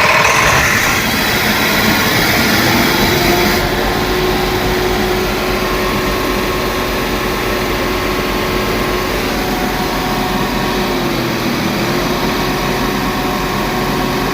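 Tata BS4 bus's diesel engine running at a steady idle just after being started, with a steady hum that sets in about four seconds in. At this point the engine would not take revs.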